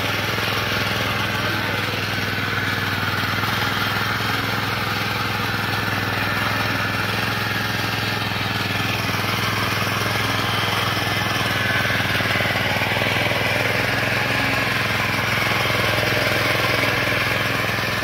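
Small air-cooled petrol engine of a walk-behind mini tiller running at a steady pitch while its rotary tines dig the soil.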